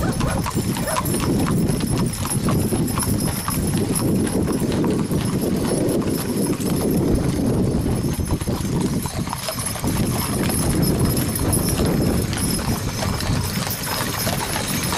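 Horses' hooves clip-clopping on a paved road as a team pulls a covered wagon past, over a steady low rumble.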